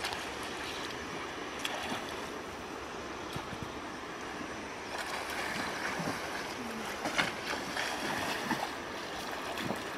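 Water sloshing as a person wades waist-deep through a pond, with sharper splashes in the second half as she lunges forward into the water.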